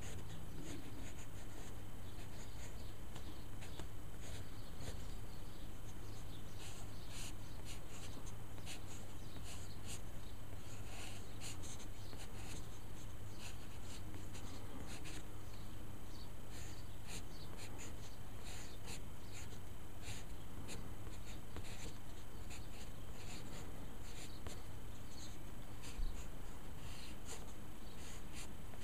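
Graphite pencil scratching on paper in many short, quick sketching strokes, coming thicker after about six seconds, over a steady low hum.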